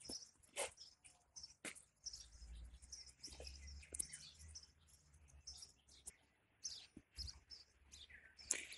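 Faint birds chirping, in short, scattered high calls. A low rumble comes in about two seconds in and fades out by about four seconds.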